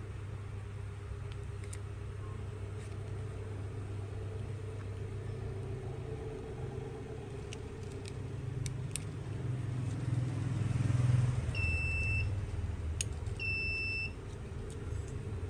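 A steady low rumble that swells and fades about two-thirds of the way through, with a few faint clicks. Near the end come two electronic beeps, each a single high tone lasting under a second, about two seconds apart.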